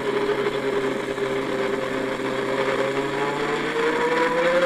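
Car engine sound from a driving video, played at full volume through a Huawei Mate 20 Pro smartphone's loudspeakers. The engine runs steadily, then rises in pitch as it revs up near the end.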